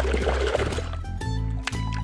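Background music with held bass notes and percussive hits. Water pours or splashes under the music during the first second or so.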